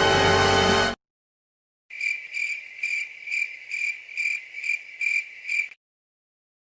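Cricket chirping sound effect: a high, rhythmic chirp repeating about twice a second for nearly four seconds, the stock 'crickets' sound used to mark an awkward silence. A music clip cuts off abruptly about a second in, before the chirping starts.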